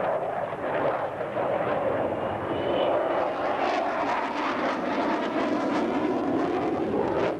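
F/A-18 Hornet fighter's twin jet engines heard during a display flight: a loud, steady rush of jet noise that turns rougher and crackly about halfway through.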